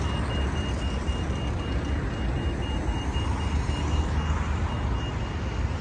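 City road traffic: a steady low rumble of passing cars and buses, with a high electronic beep repeating quickly and evenly throughout.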